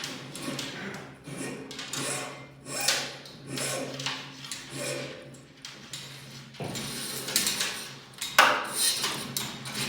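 Irregular scraping, rubbing and knocking of garage door hardware being worked by hand as an old extension spring setup is taken down, with a sharp knock about eight and a half seconds in. A faint low steady hum runs underneath.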